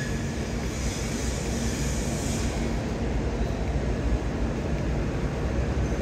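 Steady city-street traffic noise: a low, even rumble from buses and other vehicles.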